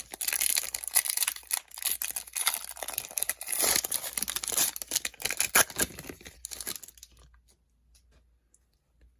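A foil trading-card pack being torn open, its wrapper crinkling and crackling, stopping about seven seconds in.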